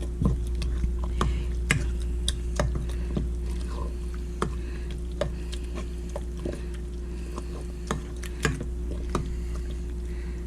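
Moist cornbread dressing being stirred in a bowl, with scattered, irregular clicks and taps of the utensil against the bowl. A steady low hum runs underneath.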